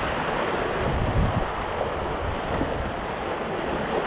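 Whitewater of a Class III rapid rushing steadily around a kayak running through it, with uneven low buffeting on the microphone.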